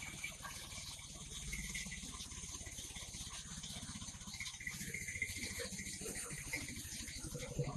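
Engine-driven wood crusher running steadily, its engine giving a rapid, even beat under a rattling hiss.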